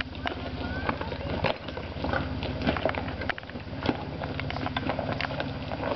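Jeep Wrangler engine running at a low, steady idle while crawling over a rocky trail, with loose rocks clacking and crunching under the tyres.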